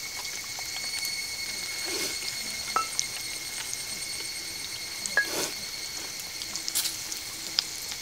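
Vegetables sizzling in a seasoned paella pan over a charcoal fire, a steady frying hiss with scattered pops and clicks. A steady high-pitched insect drone runs underneath.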